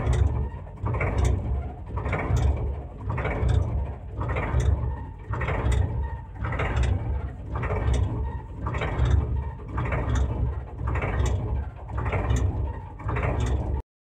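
Small battery-powered toy's motor and plastic gears running, a steady hum with a grinding, ratcheting pulse about once a second. It cuts off abruptly just before the end.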